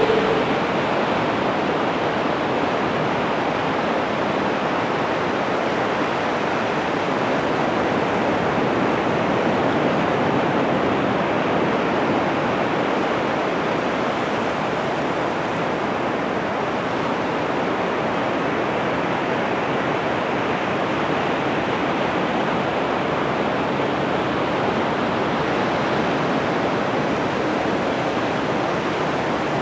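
Ocean surf breaking on a sandy beach: a steady wash of noise that swells and eases gently.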